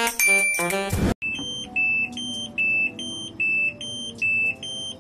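A second of music, then a Sharp ES-718X washing machine's control panel beeping repeatedly: a high electronic beep about every 0.8 s, with softer beeps in between. It is the machine's alarm for the E2 error, which the repairer puts down to a broken water level sensor.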